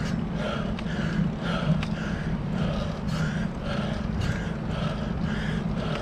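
A cyclist breathing hard and rhythmically, about two breaths a second, while labouring up a steep climb. Under it runs a steady low rumble of tyres and wind.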